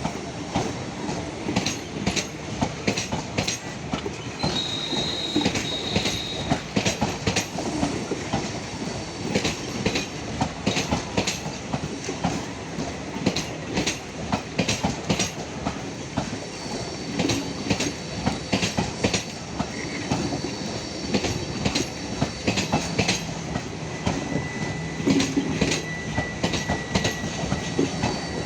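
Passenger train rolling past, its coach wheels clattering quickly and steadily over rail joints. A short high wheel squeal comes about five seconds in, and a fainter one near the end.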